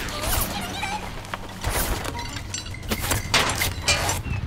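Action sound effects from an animated car chase: several sharp cracks and crashes, the loudest about three to four seconds in, over a steady low engine hum.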